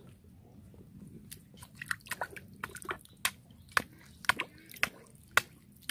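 Hands digging and groping in wet mud and shallow water: a string of sharp wet squelches and smacks, the louder ones about twice a second after a quiet first second or so.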